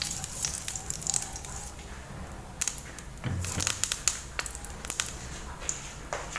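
A slotted spatula stirring and scraping through cooking oil heating in a stainless steel frying pan, with light irregular crackles and clicks and a duller knock about three seconds in.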